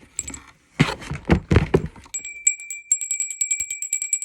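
Rattling and clattering of handled objects, then a small metal bell rung rapidly for the last two seconds: quick repeated strikes over a steady ringing tone.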